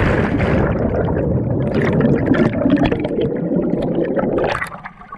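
Rushing, bubbling water from a plunge into the water, heard through a camera held underwater. The sound drops away sharply about four and a half seconds in as the camera comes back to the surface.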